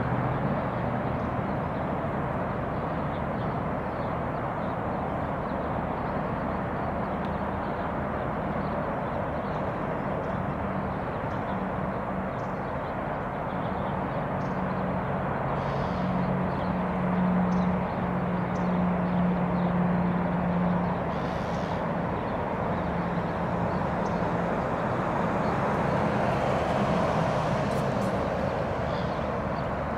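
A vehicle engine running steadily: a low, even hum over a constant hiss, the hum strongest about halfway through.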